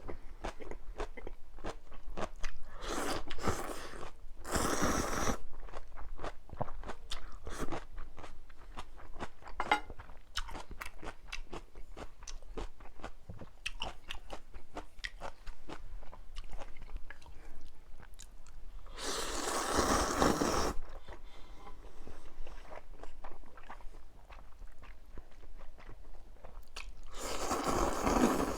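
Close-miked eating of mala ramyun and kimchi: many small wet crunches and chewing clicks, broken four times by louder rushing stretches a second or two long, typical of slurping noodles.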